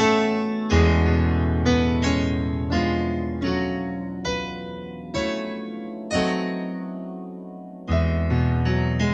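Slow solo piano music: single notes and chords struck about once a second, each left to ring and fade, with one longer held note near the end.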